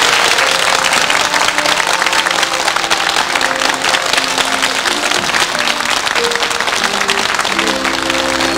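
Audience applauding while a band plays the instrumental introduction to the next song; the music grows fuller near the end.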